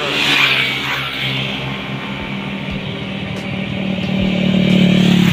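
Heavy road vehicle's engine droning past on a highway, getting louder toward a peak near the end. The rush of another vehicle passing is heard in the first second.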